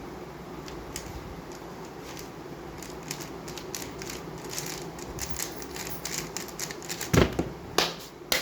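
MoYu WRM V10 Ball-Core UV 3x3 speedcube being turned very fast in a speedsolve: a rapid, dense clatter of plastic layer clicks, ending with two loud thumps near the end.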